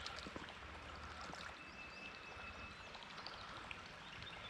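Creek water flowing and trickling faintly, with scattered small ticks of water and a thin high tone partway through.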